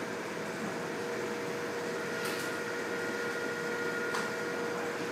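Steady fan hum and hiss of running computer and network equipment, with a constant mid-pitched whine; a second, higher whine joins about two seconds in, and there are two faint clicks.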